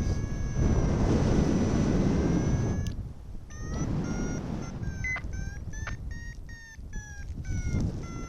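Paragliding variometer sounding: a steady tone for the first three seconds, then short beeps at about two to three a second, the vario's climb signal that the glider is rising in lift. Wind rushes over the microphone, loudest in the first part.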